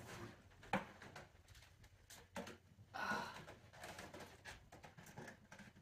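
Faint handling noises of a proton pack replica being lifted out of its plastic packaging: soft rustling with a few light clicks and knocks.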